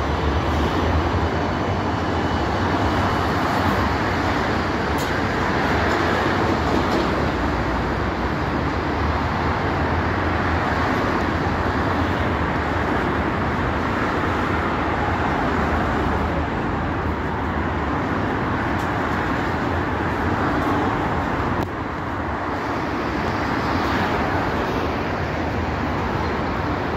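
Steady city street noise as a 71-407-01 tram pulls away from the stop and runs off along its track, with road traffic passing alongside.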